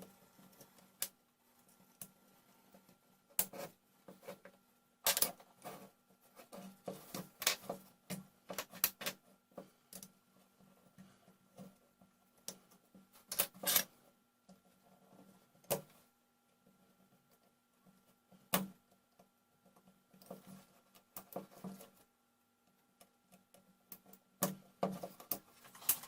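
Irregular clicks, taps and short scrapes of the small plastic and metal parts of a Dremel 3000 rotary tool being handled while it is taken apart.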